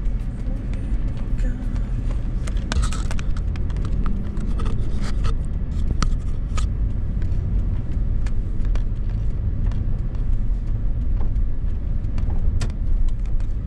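Steady low rumble of a car's engine and road noise heard inside the cabin as it moves slowly in traffic, with scattered light clicks and knocks.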